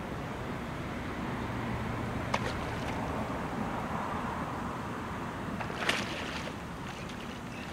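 Steady wind and water noise at the canal's edge, with two short sharp splashes or knocks, one about two and a half seconds in and a louder one about six seconds in, as a hooked grass carp is steered into a landing net.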